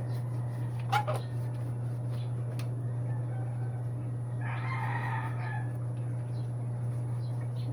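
A pitched bird call lasting about a second, a little past the middle, over a steady low hum; a short sharp click about a second in.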